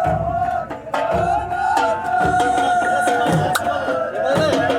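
Music with hand-drum strikes under a sustained, wavering melody line.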